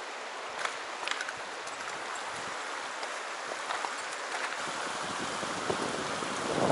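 Shallow mountain stream running over stones in a riffle: a steady, even rush of water, with a few faint clicks.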